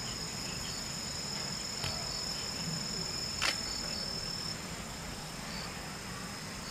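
Insects trilling steadily at a high pitch, with short high pips repeating now and then. Two sharp clicks stand out, a faint one a little under two seconds in and a louder one about three and a half seconds in.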